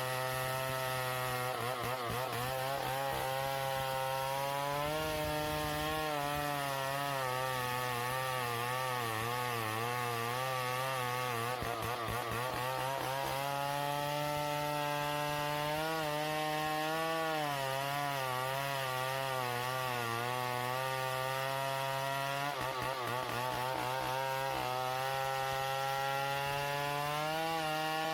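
Stihl chainsaw running hard and cutting through wood, its engine pitch wavering and dipping repeatedly as the chain loads up in the cut.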